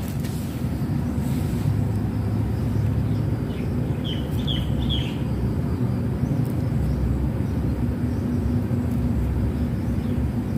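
Steady low outdoor rumble with a faint hum. Three short high chirps come about four seconds in.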